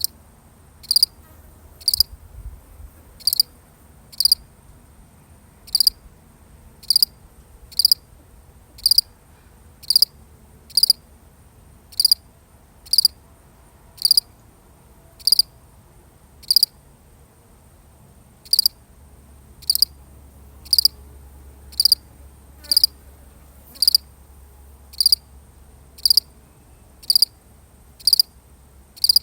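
A single cricket chirping: short, high-pitched chirps repeated evenly at about one a second.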